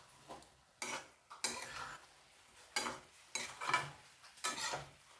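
A spatula scraping and clattering in a metal kadhai as chunks of potato, cauliflower, peas and tomato in masala are stirred. It comes in short, irregular strokes, roughly one or two a second.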